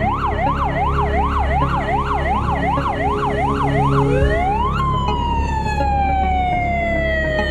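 Emergency-vehicle siren on a fast up-and-down yelp, about three sweeps a second. About four seconds in it rises sharply and switches to a long, slow falling wail.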